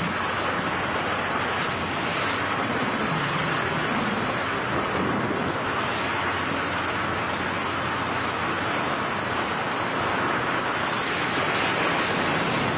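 Steady rushing wind noise of skydivers in freefall, with air streaming past the microphone.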